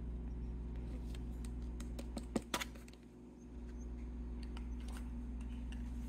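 Light plastic clicks and taps from handling a plastic tub of hand-feeding formula, with two sharper clicks about two and a half seconds in, over a steady low hum.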